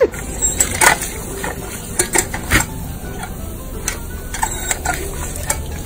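Water spraying in a steady hiss from a paw-operated outdoor dog water fountain, with irregular clicks and splashes as a German Shepherd drinks at it.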